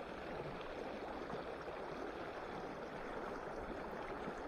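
Steady rush of a river's current flowing past.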